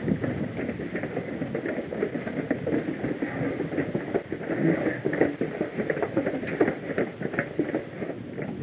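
Running footsteps of several trail runners close together, a quick, uneven patter of footfalls.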